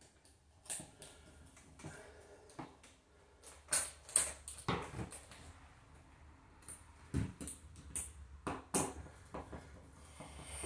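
Hand screwdriver driving a screw into a wooden door frame to fasten a strap clamp over MC armoured cable: irregular creaks, clicks and short scrapes, a few of them louder.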